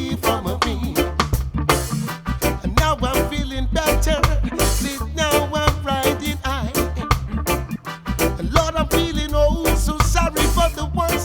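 Reggae band playing live in an instrumental passage: steady bass and drums with a lead melody line on top.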